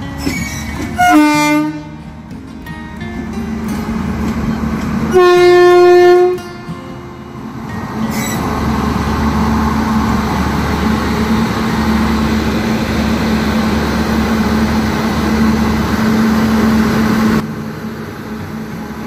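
Indian Railways locomotive sounding its horn, a short blast and then a longer, louder one, then running past close by with a steady rumble and hum that drops away abruptly near the end. It is a light engine moving up to couple onto its train's coaches during an engine change.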